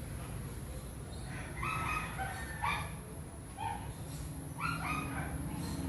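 A dog barking, short sharp barks in small groups of one to three.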